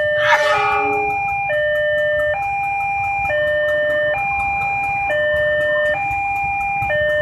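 Indonesian railway level-crossing electronic warning bell sounding its slow two-note alternating chime, each note held a little under a second, warning of an approaching train. A low rumble runs underneath, and a brief sharp high sound comes about half a second in.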